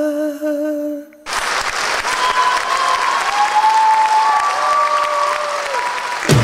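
A singer's final held note, with vibrato, ends about a second in. The audience then applauds steadily, with a few voices calling out over the clapping.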